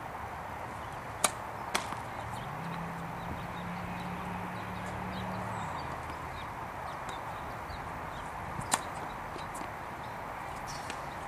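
Tennis racket striking the ball on a serve: a sharp pop about a second in, then a softer knock half a second later, and another sharp racket-on-ball pop about three quarters of the way through.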